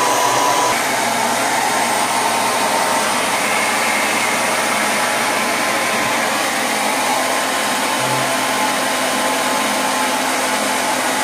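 Handheld hair dryer blowing a steady stream of air, with a slight shift in its tone under a second in.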